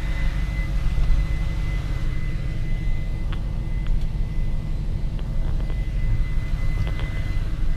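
Volkswagen Touareg's V8 petrol engine running at low revs, heard from inside the cabin as a steady low rumble, with a few faint clicks and a thin steady high tone over it.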